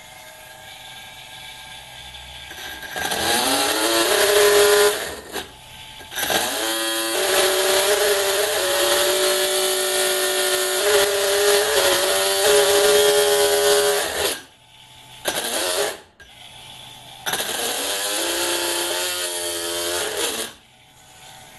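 Small geared micro electric drill whining as it drills a 1/4-inch bit into steel plate. The motor runs in four stretches: a short one about three seconds in, a long one in the middle, a brief burst and a last run near the end. Its pitch rises as it spins up each time, then holds steady with small dips under load.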